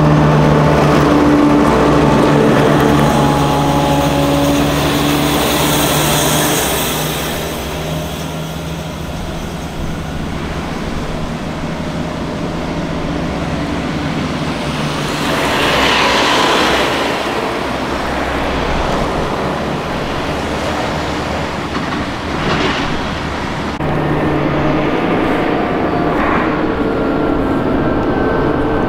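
Piranha 5 8x8 armoured vehicles driving past in a column, their diesel engines running with a steady hum. The sound swells as one passes close about halfway through.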